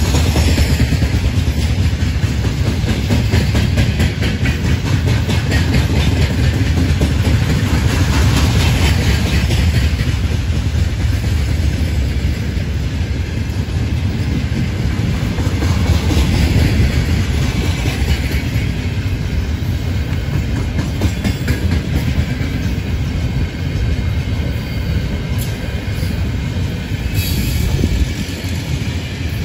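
Freight train of open-top gondola wagons rolling past close by: a loud, steady rumble of steel wheels on rail with continual wheel clatter.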